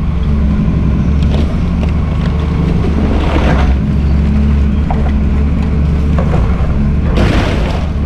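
Volvo EC210CL excavator's diesel engine running steadily under load while the bucket works the refrigerator's wreckage, with two short crunching bursts, about three seconds in and again near the end.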